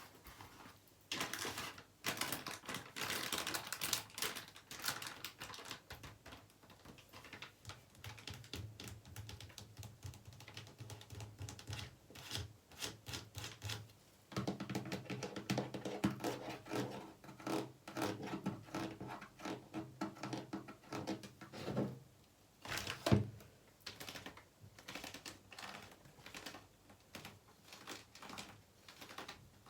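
Fast, dense tapping and scratching with fingertips or nails on bathroom objects and surfaces. Through the middle stretch the taps ring with a low, hollow pitch, and one sharper, louder tap comes about two-thirds of the way in.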